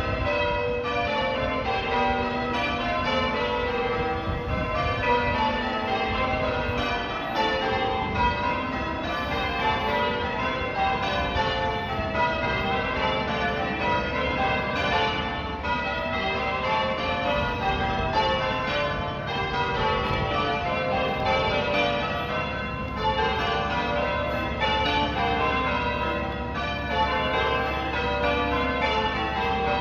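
Church bells of Sacred Trinity Church, Salford, being rung in changes: a steady, unbroken run of bell strikes, one bell after another in quick succession, the tones overlapping.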